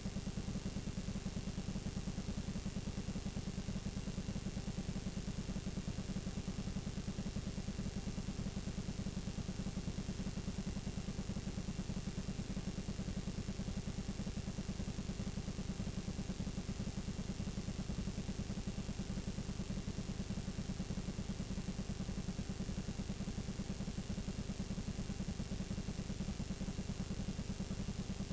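Steady low buzz with hiss and a thin high whine from a blank, unrecorded stretch of videotape playing back as static.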